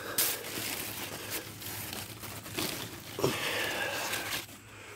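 Rustling and crinkling of large garden plant leaves being brushed and pushed aside, with a couple of sharper crackles.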